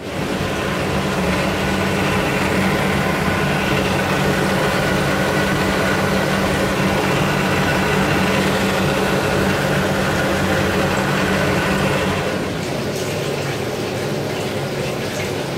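Newly installed Onga spa bath pump, a quarter-horsepower 2800 RPM electric motor, running with a steady hum. About twelve seconds in the sound becomes a little quieter.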